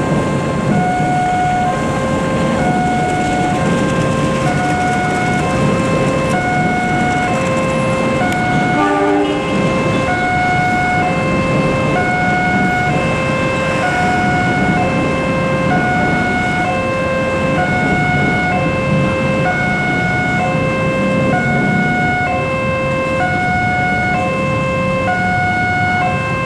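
Railway level crossing warning alarm sounding a steady two-tone alternating chime, about one high-low cycle every second and a half, over the low rumble of a passenger train passing the crossing. A short rising run of notes cuts through about nine seconds in.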